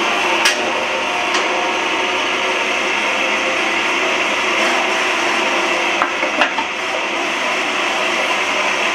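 Metal-cutting bandsaw running and sawing through the wall of a steel gas cylinder. It makes a steady, even cutting noise, with a few short sharp ticks along the way.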